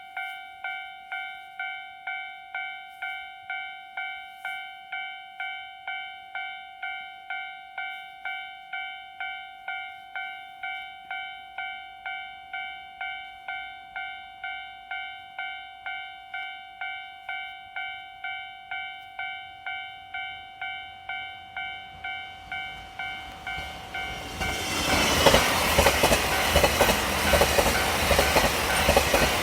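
Japanese level-crossing warning bell ringing steadily at about two dings a second. About 22 seconds in, the limited express Ōzora, a diesel train, rushes through the crossing, loud and with rapid clatter from its wheels over the rail joints, over the bell.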